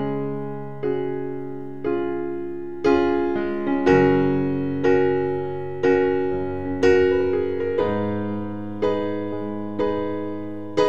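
Background piano music: slow chords struck about once a second, each fading before the next.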